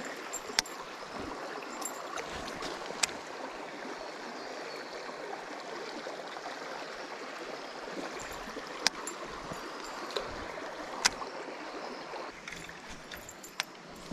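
Shallow creek water running steadily, with several sharp clicks scattered through it.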